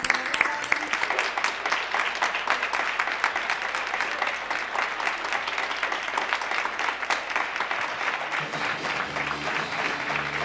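Many people clapping together from balconies along a street, a dense, continuous applause of many hands. Music starts coming in underneath near the end.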